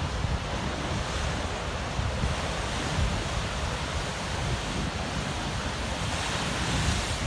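Pacific surf breaking and washing over rocks: a steady rush of white water, with wind rumbling on the microphone. The rush swells a little near the end.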